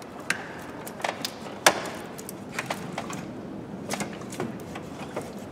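Irregular plastic clicks and knocks as a car's coolant expansion tank is unclipped and lifted out of its mount, with the loudest knock about a second and a half in.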